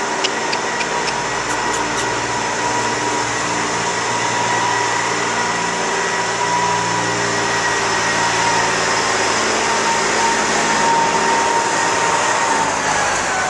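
A steady mechanical drone with a whine in it that slides down in pitch near the end, and a few light clicks just after the start.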